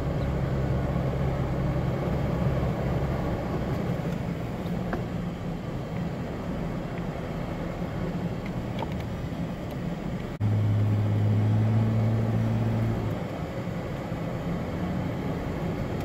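Four-wheel-drive vehicle driving on hard beach sand, heard from inside the cabin: a steady engine and tyre drone. About ten seconds in, the engine note abruptly turns louder and lower for about three seconds, then settles back.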